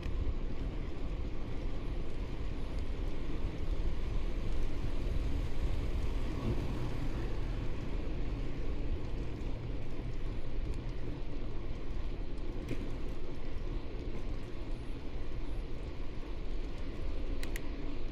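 Steady wind rumble on the microphone of a camera carried on a moving bicycle, with a few light clicks near the end.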